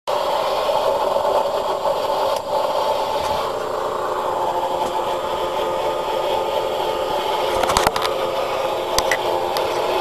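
Telephone dial tone picked up off a telephone test set by a modified Decatur RM-715 X-band doppler radar: a steady, distorted tone under hiss, with a few clicks near the end.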